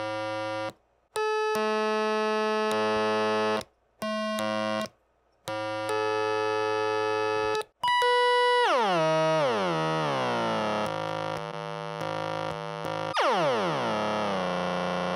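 Buzzy 555-timer oscillator tones playing through a small guitar amp. For the first eight seconds they switch on and off in short blocks, sometimes two or three tones at once in a chord. Then the pitch glides downward in long sweeps as a potentiometer knob is turned, twice.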